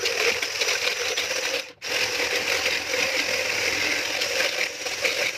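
Electric hand blender with a wire whisk attachment beating eggs, sugar and oil in a plastic jug: a steady motor whirr with the whisk rattling in the jug, cutting out for a moment just under two seconds in and then running on.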